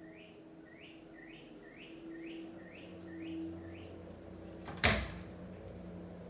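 A run of about eight quick, evenly spaced chirps, roughly two a second, then a single sharp knock about five seconds in as a wooden closet door is opened.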